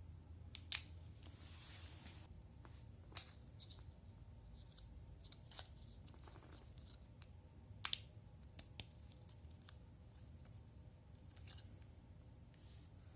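Scattered sharp clicks and a brief rustle from small construction-set parts being handled. The loudest is a quick double click about eight seconds in.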